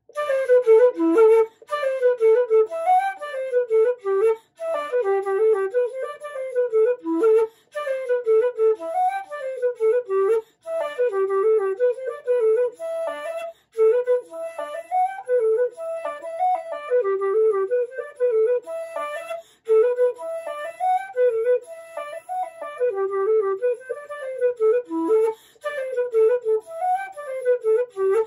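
Wooden Irish flute of cocus wood, made by Patrick Olwell, played solo: a slip jig melody in 9/8 time, with short breaks for breath every few seconds.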